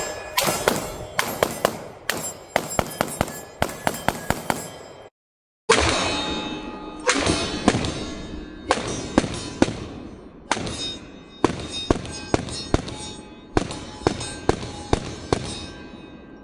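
Fast strings of pistol shots, each crack followed by a metallic ringing. The shots come in bursts of several a second. About five seconds in, the sound drops out completely for half a second where the recording cuts, then the strings resume.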